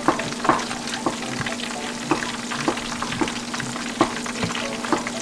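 Chicken karaage coated in crushed shrimp-cracker crumbs deep-frying in a wok of hot oil: a steady sizzle with frequent crackles and pops. This is the first fry of the pieces.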